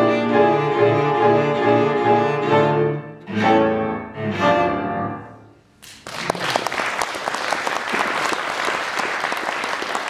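Cello and piano playing the fast closing bars of a tarantella. Two final chords come about a second apart and ring away. Applause breaks out about six seconds in.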